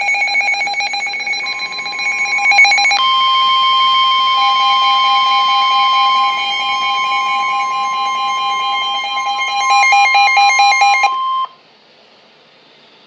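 Emergency Alert System alert tones: a rapidly pulsing electronic tone pattern, then from about three seconds in a steady two-tone attention signal. It cuts off abruptly about eleven and a half seconds in, leaving only faint hiss.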